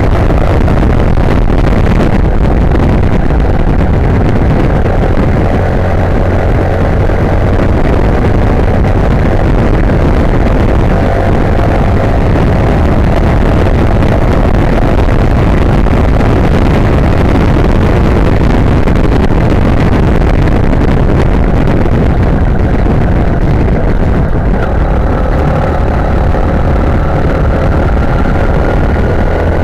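Sym Wolf 150's single-cylinder four-stroke engine running steadily while riding, largely buried under heavy wind buffeting on the microphone. Near the end the engine note rises slightly as it accelerates.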